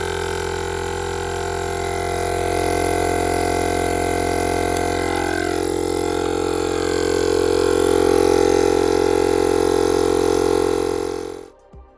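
Kobalt 12-volt portable tire inflator running steadily, its small motor-driven piston compressor pumping air into a flat tire. It stops abruptly near the end.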